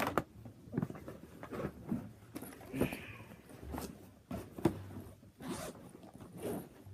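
Irregular plastic clicks, knocks and rustling of handling as Nerf blasters are picked up and moved about.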